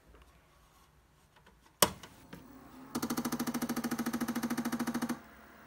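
A sharp click as the power comes on, then the stepper motors of salvaged CD-ROM drive sleds run together for about two seconds with a rapid, even pulsing buzz, stopping abruptly. A faint steady hum remains after they stop.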